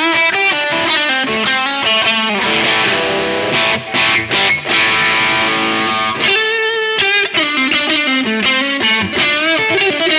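Electric guitar played through a NUX 63 Diamond AC30-style overdrive pedal, giving a distorted, Vox-like crunch. It plays a lead phrase of quick single notes, with string bends and vibrato about six seconds in.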